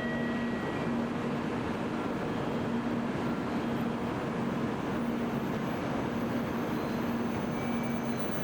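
Steady noise of a Tokaido Shinkansen train at a station, with a low hum that pulses on and off about once a second.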